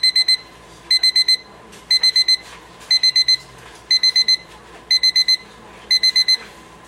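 Electronic alarm of a RHYTHM solid-wood alarm clock sounding: bursts of four quick high-pitched beeps, repeating about once a second.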